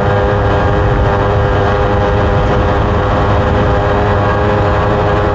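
Motorcycle engine running at a steady, unchanging pitch while riding.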